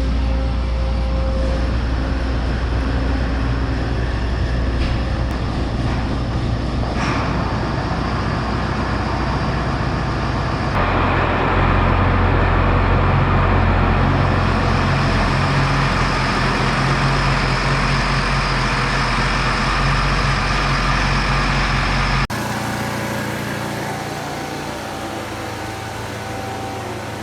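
Vehicle engine running steadily with a low drone, the sound changing abruptly twice, about 11 and 22 seconds in.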